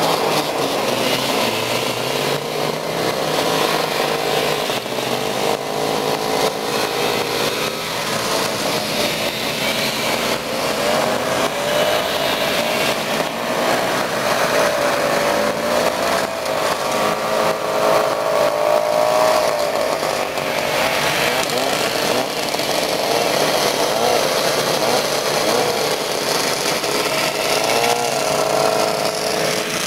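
Several vintage two-stroke snowmobile engines running as the sleds pass one after another, their pitches overlapping and rising and falling.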